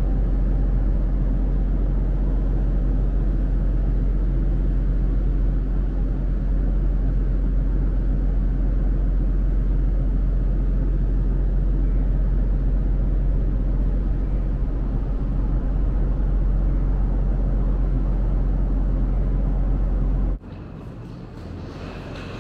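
Steady low drone of the moored car ferry Hamayu's engine machinery running at berth, a deep even hum with no change in pitch. It cuts off suddenly about two seconds before the end, giving way to quieter indoor room noise.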